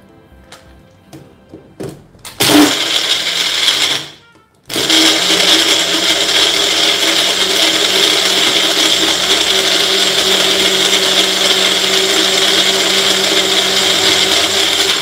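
Bullet-style personal blender blending a jar of ice, coconut cream and water. A few clicks as the jar is seated are followed by a short burst of about a second and a half, a brief stop, then about ten seconds of steady running with a constant motor hum until it cuts off.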